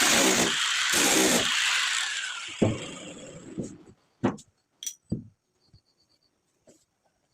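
A power tool runs with a loud hiss over a pulsing drone, then winds down over about two seconds with a falling pitch. After that come a few light, separate clicks and knocks of glass.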